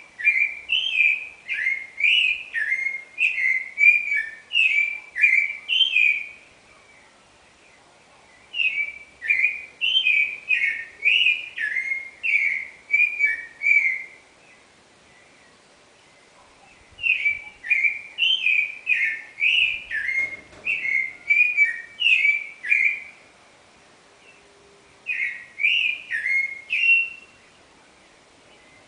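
Clay-colored thrush (yiguirro) singing its dawn song: rapid runs of clear, varied whistled notes in four bouts of several seconds each, separated by pauses of two to three seconds.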